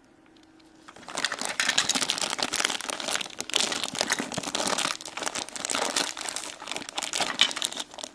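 Plastic packaging crinkling and crackling as it is handled and pulled open to get a toy figure out, starting about a second in and going on busily with sharp little crackles.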